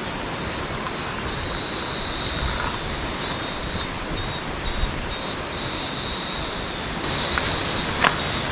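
Steady rush of flowing water, with insects calling in a high, buzzing band that starts and stops in bursts. A couple of faint clicks near the end.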